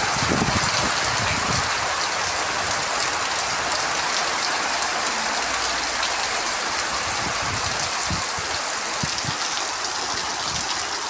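Heavy rain pouring down in a steady, dense hiss, with a few short low thuds.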